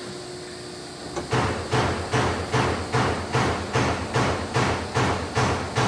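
A steady machine hum, then from a little over a second in a regular knocking at a little under three knocks a second.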